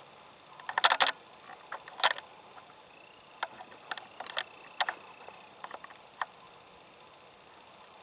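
Irregular sharp clicks and crackles, loudest in a cluster about a second in and again near two seconds, then scattered single clicks, over a steady high insect drone.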